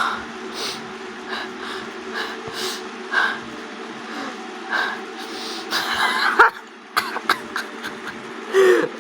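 A man laughing breathlessly in short, wheezy bursts and gasps while he has the hiccups, with a few sharp catches near the end.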